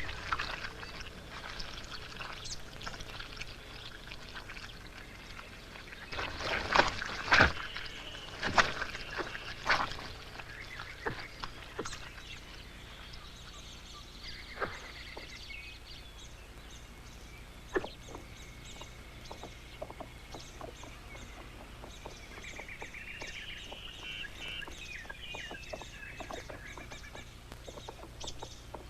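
Wild birds calling and chattering, with a cluster of sudden loud thumps about seven to ten seconds in.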